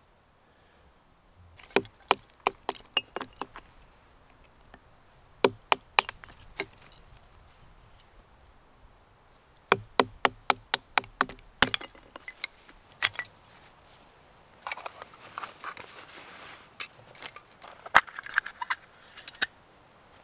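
Repeated sharp wooden knocks in bursts of several quick strikes, with pauses between bursts. A custom SE3 bushcraft knife is being batoned down through a piece of wood with a wooden stick, splitting it into kindling.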